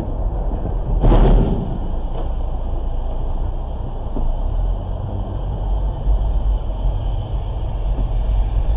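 Steady low rumble of engine and road noise inside a car in traffic, with a heavy dump truck passing close alongside. About a second in comes a single loud, sudden impact noise that fades within half a second.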